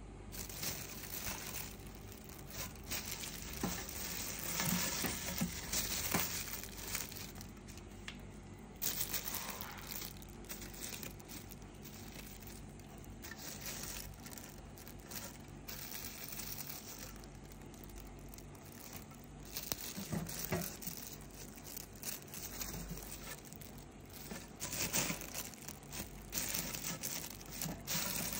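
Clear plastic bags wrapped around 3-inch firework display shells crinkling and rustling in irregular bursts as the shells are handled in their rack.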